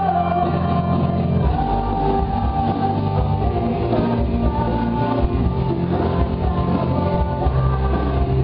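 Music with singing, accompanying a stage dance.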